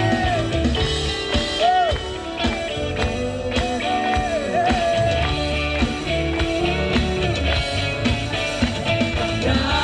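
Live worship band playing an upbeat instrumental passage, with drums, bass and electric guitar.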